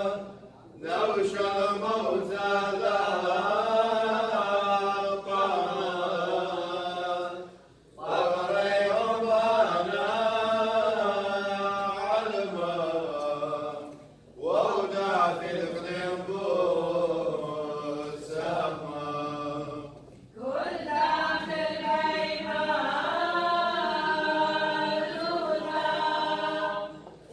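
Choir chanting a liturgical hymn of the Assyrian Church of the East in gliding sung phrases about six seconds long, with a short breath between each.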